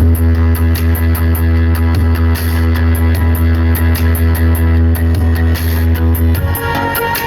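Loud music played through a large PA sound system, with a heavy sustained bass and fast, regular high cymbal ticks; the bass drops out about six seconds in.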